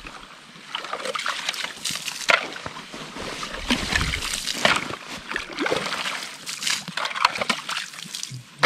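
Water and slush sloshing and splashing in a hole chopped through about two inches of ice as a shovel scoops out broken ice, in many irregular strokes.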